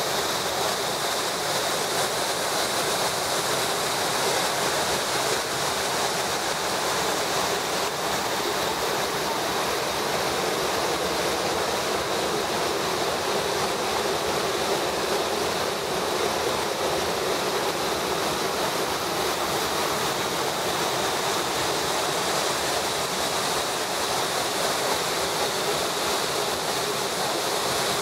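Steady, even rushing of the Eger river in high flow, pouring over rocks and the Thusfall waterfall.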